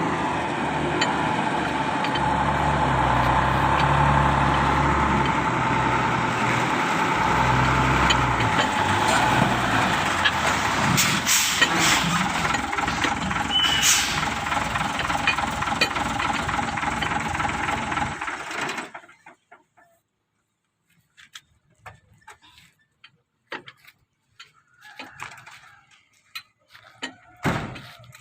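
A heavy vehicle's engine running close by, steady with a low rumble, cutting off abruptly about eighteen seconds in. After that come scattered light clicks and knocks.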